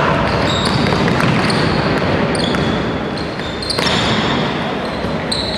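Basketball play on a gym court: sneakers squeaking in many short, high chirps and the ball bouncing, over a steady din in the hall.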